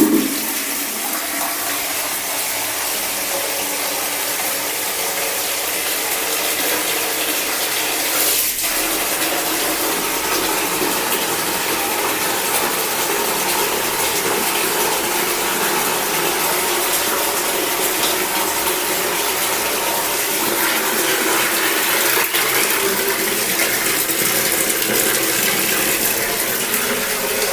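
Water running steadily from a tap, with a brief knock about eight seconds in.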